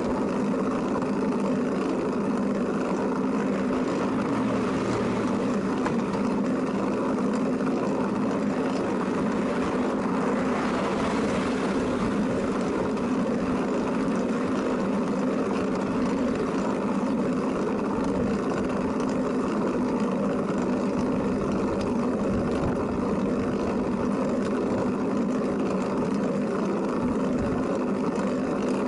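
Steady running noise of a Flevotrike recumbent trike being ridden: an unbroken drone of wind, tyres and drivetrain with a constant low hum. The hiss swells briefly about ten seconds in.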